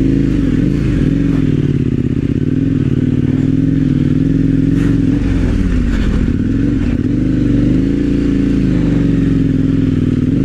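Motorcycle engine running as the bike is ridden, its note dipping and climbing back a couple of times as the throttle is eased and opened, with a few light knocks.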